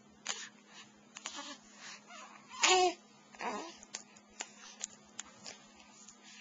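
Short vocal sounds: one loud, brief pitched call about two and a half seconds in, then a weaker call falling in pitch just after, among scattered small clicks.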